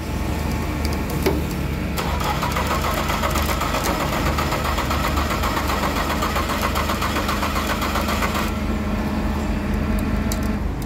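Tow truck's engine running steadily, with a fast-pulsing mechanical whine from about two seconds in to about eight and a half seconds in.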